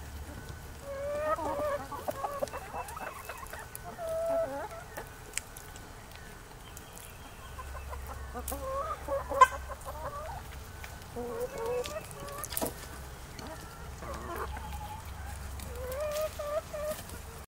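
Backyard flock of chickens clucking, with many short calls overlapping throughout. A few sharp taps cut through, the loudest about nine seconds in.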